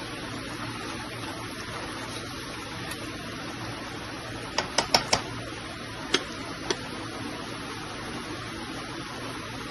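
Steady hiss of cooking on a gas stove, a pot of potatoes simmering in tomato. About halfway through comes a quick run of four sharp taps, then two more single taps, as the spatula knocks against the aluminium pot.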